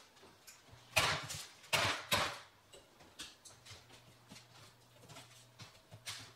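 A metal baking sheet of cookies is set down on the counter and the wall-oven door is shut: two loud clattering knocks about a second apart. They are followed by light taps and parchment rustling as the warm sugar cookies are moved by hand.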